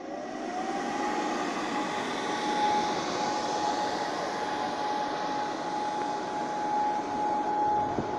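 Electric air blower inflating a landing tuffet through a fabric duct: the motor spins up over the first second, with its whine rising in pitch, then runs steadily with a high whine over rushing air.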